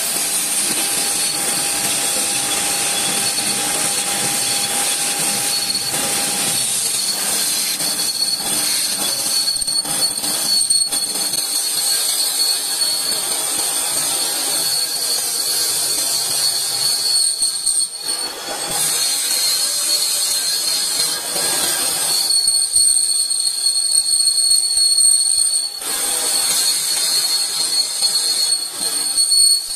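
Lathe tool bit cutting a spinning aluminium pulley blank with a steady high-pitched squeal, the lathe running underneath. The squeal eases briefly twice in the second half.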